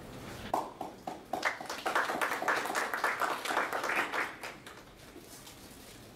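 Audience applauding: a few separate claps, then fuller clapping that dies away after about four seconds.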